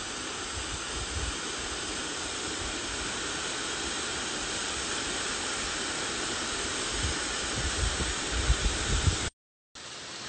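Steady rushing hiss of a waterfall, with low wind rumble on the microphone that grows over the last few seconds. The sound cuts out briefly near the end.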